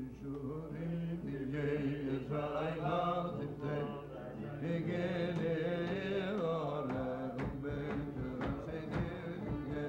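A man singing a slow, chant-like melody to a strummed acoustic guitar. About seven seconds in, sharp rhythmic beats come in under the voice.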